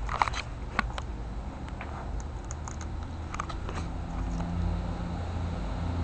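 Amazon parrot's beak making short, sharp clicks and nibbling sounds every second or so, with a louder double click at the end, over a steady low rumble.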